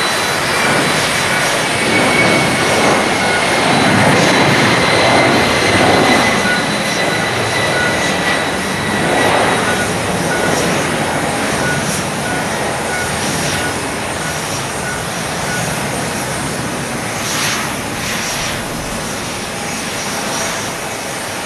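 A Boeing 767-300's twin turbofan engines at takeoff power as the airliner lifts off and climbs away: a loud, steady jet roar with a high whine that slowly drops in pitch, the whole sound fading gradually.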